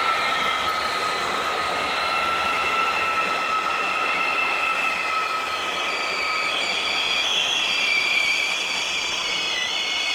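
BR 412 ICE 4 electric train moving through the station, with a steady rushing noise and several high squealing tones that drift slowly in pitch. A new, higher set of tones comes in about six seconds in.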